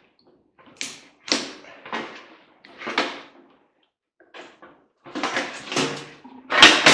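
Metal parts of a microwave being worked loose and handled: a run of separate knocks and clanks, then a denser clatter near the end with one sharp loudest hit.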